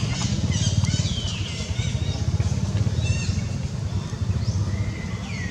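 High, falling squeals from a wet infant macaque, one about a second and a half in and another near the end, with short chirps between, over a steady low rumble.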